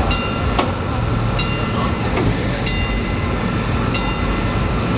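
Level-crossing warning bell ringing, one bright strike about every 1.3 seconds, over a steady low rumble from the passenger train standing at the platform.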